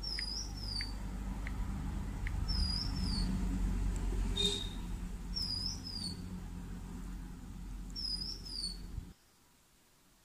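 A small bird calling: a quick two-note chirp repeated four times, about every two and a half seconds, over a steady low rumble that cuts off suddenly near the end.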